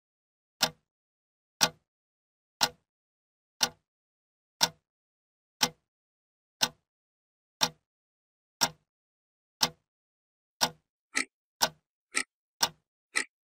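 Clock ticking with sharp, evenly spaced ticks once a second, quickening to about two a second over the last couple of seconds.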